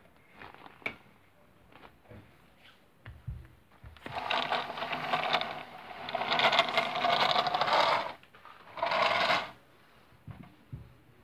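Battery-powered toy train running across a wooden floor: its small electric motor and gears whir with a rattle for about four seconds from around four seconds in, then again briefly near the end. A few light clicks and knocks come before it.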